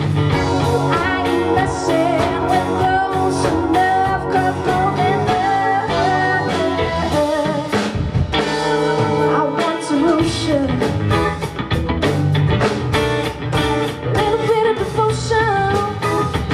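Live band playing: electric and acoustic guitars over a drum kit, with a woman singing.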